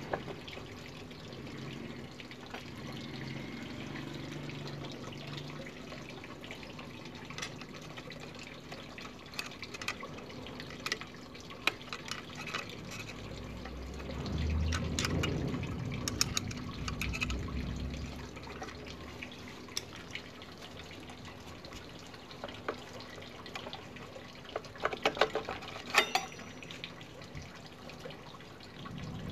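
Scattered light metal clicks and taps from a rear brake caliper being unbolted with a hex key and worked off its brake disc. A low rumble comes in for several seconds midway, and a quick run of clicks comes near the end.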